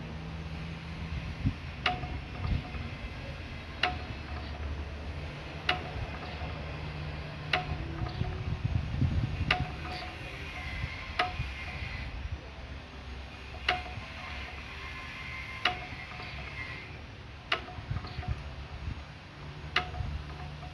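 Restored Wolseley WD8 stationary engine running with a steady low rumble, and a sharp metallic tick about every two seconds.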